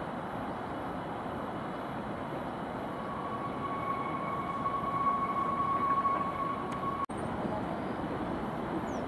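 Distant rumble of a Shinkansen train and city noise, swelling for a few seconds. A steady high-pitched tone joins about three seconds in and stops abruptly about seven seconds in.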